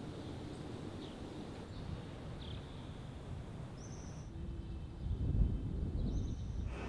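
Outdoor ambience: a steady low rumble with a few short, high bird chirps scattered through it. The background changes abruptly about four seconds in, and there is a brief louder low swell near the end.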